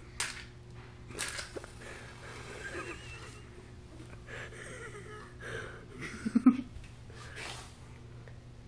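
A child's short breathy huffs, with a brief low vocal grunt about six and a half seconds in.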